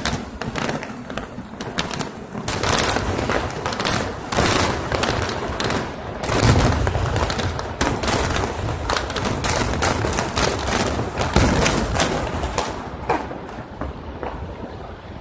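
Fireworks display finale: a dense barrage of aerial shell bangs in rapid succession, loudest about six and a half and eleven and a half seconds in, thinning out over the last couple of seconds.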